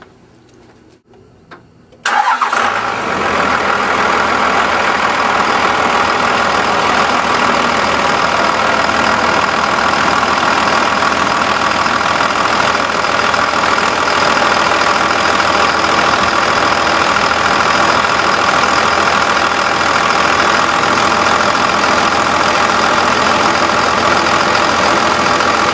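Cummins 5.9-litre turbo diesel inline-six starting suddenly about two seconds in, then idling steadily, with its oil filler cap off for a blow-by check.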